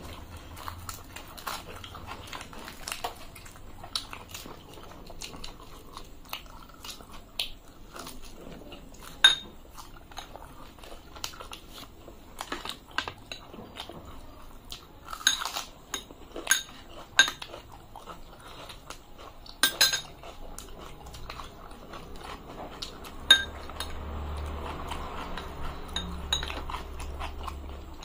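Close-miked eating sounds: metal spoons clink against glass bowls and plates in sharp, ringing taps, a handful of them loud. Between the taps come chewing and the tearing of luchi, the puffed fried bread.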